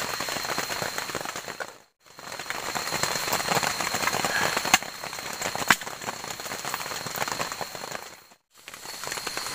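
Steady rain falling, with scattered sharp pops and ticks over it. The sound drops out to silence briefly twice.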